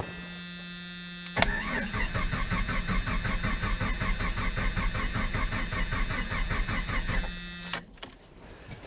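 1990 Jeep Comanche engine cranking over on the starter, an even beat of about four to five a second for some six seconds, then stopping. Before and just after the cranking, a steady hum from the truck's electric fuel pump running with the key on.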